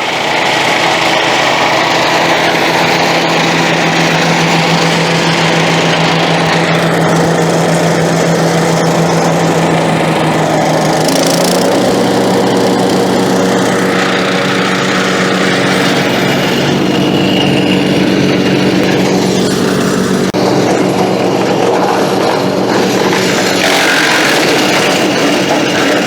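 Crytec wood chipper's engine running steadily on a test run after new blades have been fitted. Its note shifts slightly about eleven seconds in.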